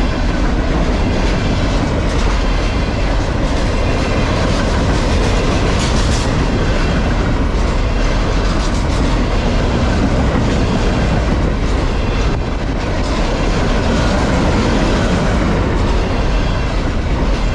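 Freight train of flatcars carrying large box containers rolling past close by: a loud, steady rumble of steel wheels on rail, with scattered clicks as the wheels run over rail joints.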